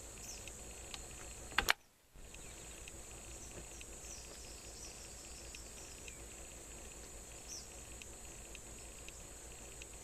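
Steady high-pitched insect drone in the background, broken by one sharp crack about a second and a half in.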